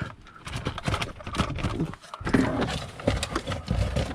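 Plastic wiring connectors and wiring being handled and worked loose: irregular clicks, knocks and rustling.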